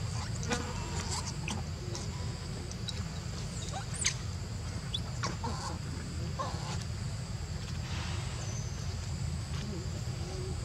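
Young macaques giving short squeaks and chirps, with one sharper, higher squeal about four seconds in, over a steady low rumble and a steady high whine.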